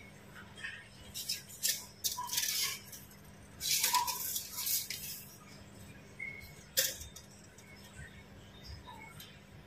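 Intermittent scraping rustles and small clicks of hand work with objects, with one sharp click about two-thirds of the way through, over a faint steady hum.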